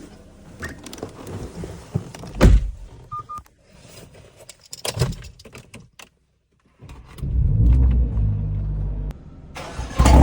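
Cabin handling sounds: clicks and knocks, a loud thunk about two and a half seconds in, and two short electronic beeps. About seven seconds in, the Mercedes-AMG GLA45's turbocharged four-cylinder starts with a loud low start flare that lasts about two seconds before dropping. The engine runs a stage 2 tune with a downpipe and open air filter.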